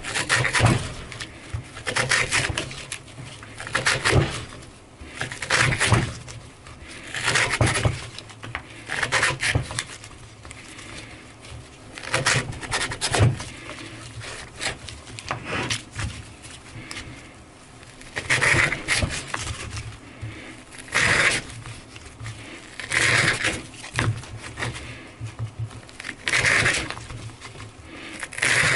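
S90V steel pocket knife blade, at 64.5 Rockwell hardness with a 15-degree-per-side edge, slicing through 1-inch manila rope, one cut every second or two. Repeated rope cuts like these are an edge-endurance test.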